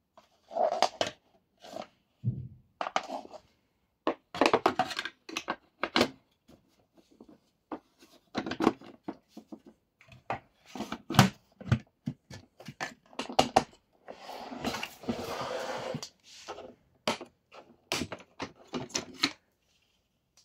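Hard plastic clicks, knocks and scrapes from handling the parts of a Philips Universe FC9004 bagged vacuum cleaner, as the reusable dust bag in its holder is fitted into the dust compartment and the filter frame is handled. A steadier scraping noise lasts about two seconds, a little past two-thirds of the way through.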